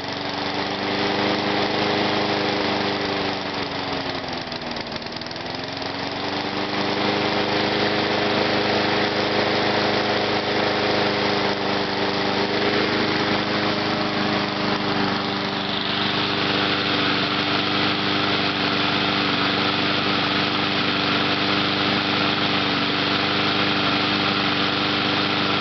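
Briggs & Stratton 4.5 hp single-cylinder engine on a walk-behind lawn mower running at speed; its speed sags and recovers twice within the first six seconds, then holds steady, with added hiss from about two-thirds of the way in. The unsteady running is a carburetor fault that the owner puts down to a worn carburetor diaphragm and a dirty air filter.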